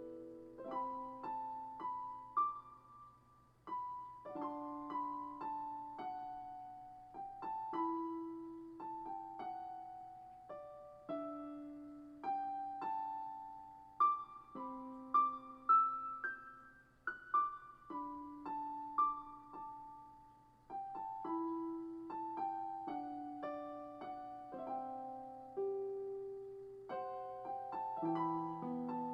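Slow, gentle solo piano improvisation: single notes and soft chords struck and left to fade, with a couple of brief pauses.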